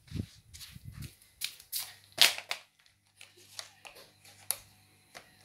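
Light clicks and taps of plastic toy railway track and its fittings being handled, the sharpest click a little over two seconds in, with a low rumble of the phone being handled near the start.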